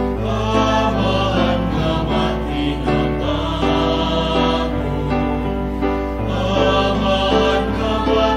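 A slow religious hymn sung by a choir, with long held notes that change every second or so.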